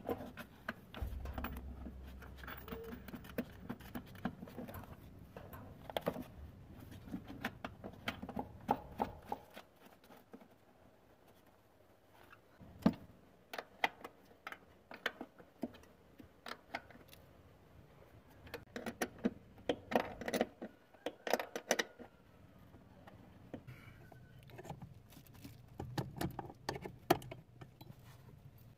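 Scattered light metallic clicks, taps and scrapes of hand work as a clutch master cylinder is fitted to a car's firewall and its mounting nuts are put on, with quick clusters of clicks now and then.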